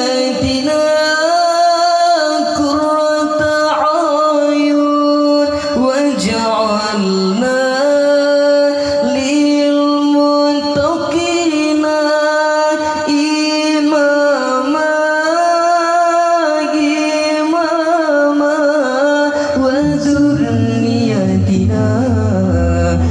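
Ornamented Arabic nasheed singing, long held notes sliding and bending between pitches; about twenty seconds in a lower pitched part comes in underneath.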